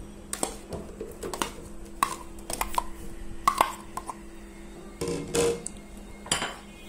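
A metal spoon clinking and scraping against a bowl and a glass blender jar as pieces of cut mango are spooned into the jar, giving irregular clinks and taps, with a louder cluster about five seconds in.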